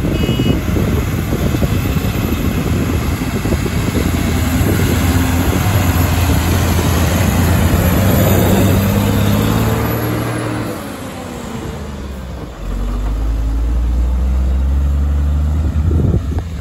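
Diesel engines of a JCB backhoe loader and tipper trucks working under load, the engine note rising and falling as they rev. About ten seconds in the sound eases off and drops in pitch, then a deeper engine note comes in strongly.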